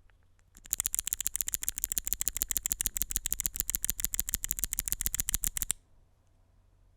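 Fast, continuous typing on a Zoom65 Essential Edition R2 mechanical keyboard with lubed Alpaca silent linear switches on a polycarbonate plate: a rapid run of soft key clicks, about ten a second, that starts just after the beginning and stops suddenly about a second before the end.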